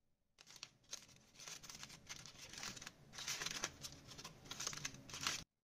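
Aluminium foil crinkling and crackling as it is pulled open by hand from around a baked potato, with many quick crackles that stop abruptly near the end.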